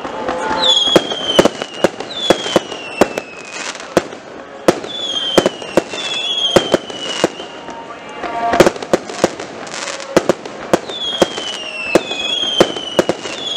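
Aerial fireworks: a rapid, irregular string of sharp bangs from shells bursting overhead, mixed with whistles that each fall in pitch over about a second, heard several times. Near the middle the bangs bunch into a dense burst.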